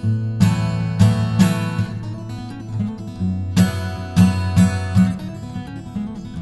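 Intro music: strummed guitar chords with sharp accented hits over a sustained bass line.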